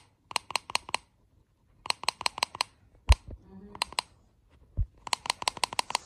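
A clear cup being tapped with the fingers: quick runs of four to seven ringing taps, about five a second, with a pause between runs and a couple of dull knocks in the middle.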